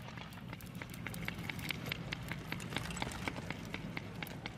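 Footsteps on dry, gritty ground: a quick, irregular run of small crunching ticks over a low background hum.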